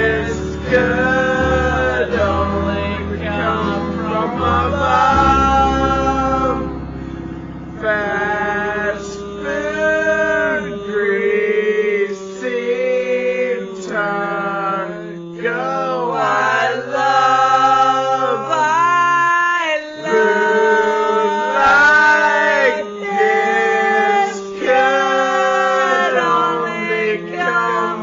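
Male voice singing a comic song, played back slowed down so the voice sounds low and dragging, over a plucked string accompaniment. The low bass drops away about eleven seconds in.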